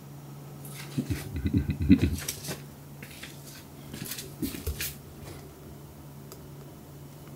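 A kitten pawing and swatting at another cat on a carpeted cat tower. A flurry of soft thumps and rustles comes about a second in, with a brief squeaky tone in the middle of it, and a few more thumps follow about four seconds in.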